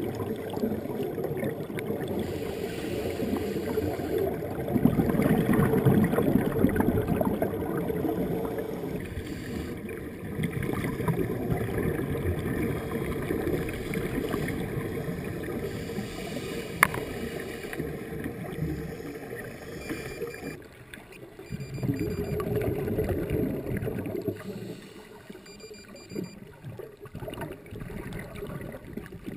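Muffled underwater rush and gurgle of scuba exhaust bubbles and moving water, heard through a GoPro Hero 2's waterproof housing. It swells louder a few seconds in and again past twenty seconds, with a single sharp click past the middle.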